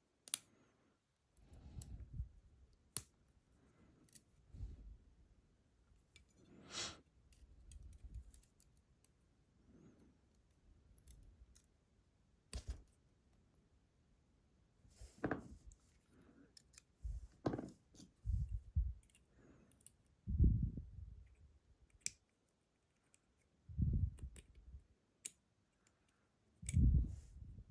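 Sparse, irregular small clicks and scrapes of a tool pushing and prying a stuck slider in the chamber of a dismantled ASSA Desmo slider lock, with short dull handling bumps every few seconds.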